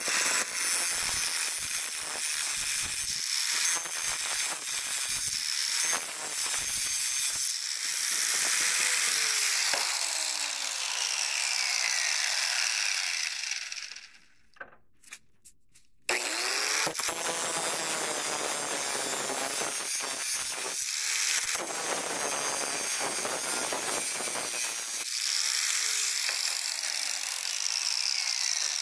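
Electric angle grinder cutting through a steel nut welded onto a washer. The motor's whine falls in pitch several times as the disc bites into the metal. It stops for about two seconds midway with a few clicks, then spins up and cuts again.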